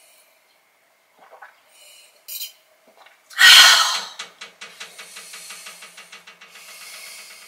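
A woman swallowing gulps of beer, then a loud satisfied exhale (an 'ahh' after drinking) about three and a half seconds in, trailing off into a long rattling, pulsing sigh that slowly fades.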